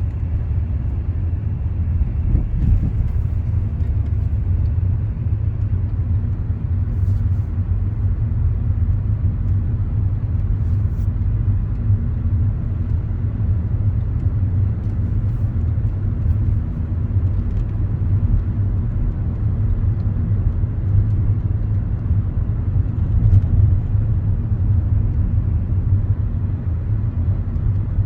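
Steady low rumble with a faint hum, like a running vehicle or heavy machinery, holding at an even level throughout.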